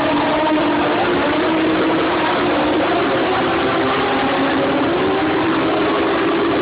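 Several dwarf race cars' motorcycle engines running together, their pitches drifting up and down as they overlap.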